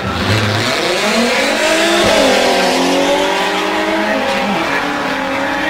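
Drag cars launching off the start line at full throttle. One is a VW Beetle. The engine pitch climbs, drops at a gear change about two seconds in, then holds steady as the cars run down the strip.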